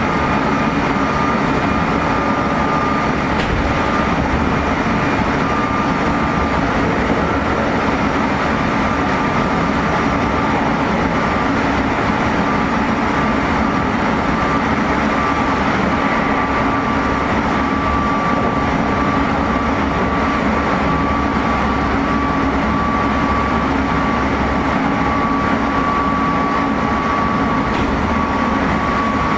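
Meitetsu 3500 series electric train running at speed, heard inside a motor car: a steady rumble of wheels on rails with a steady high-pitched whine from its Toyo Denki GTO-VVVF traction motors.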